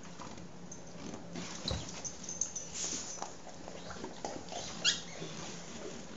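Dogs crunching and chewing dog biscuits: scattered short, crisp cracks and clicks as the biscuits break, with a brief high rising squeak about five seconds in.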